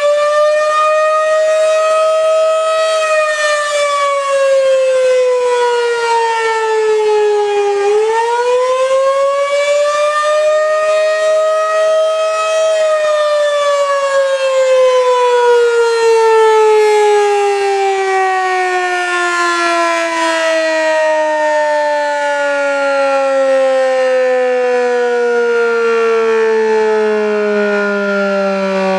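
Federal Signal outdoor warning siren wailing loudly. Its pitch rises and falls slowly twice, then sinks in one long falling tone as the siren winds down.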